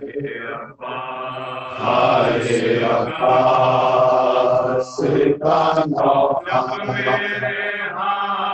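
Men chanting a noha, a Shia lament, in a sung recitation led at a microphone.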